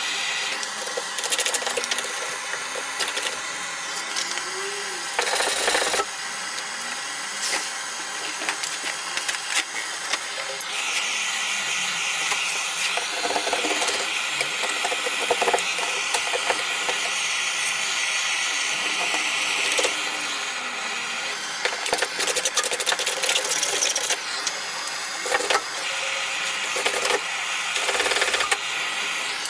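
Handheld gas cartridge torch hissing steadily as it heats old underseal on a car's underbody, with a scraper rasping and knocking at the softened underseal in short, irregular strokes. The hiss grows louder for several seconds in the middle.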